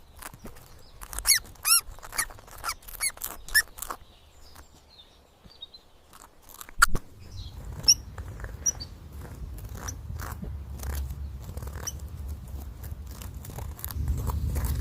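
Guinea pigs chewing and crunching carrots, with several short squeaks in the first few seconds. From about seven seconds in, a low wind rumble runs under scattered crunching clicks and grows louder near the end.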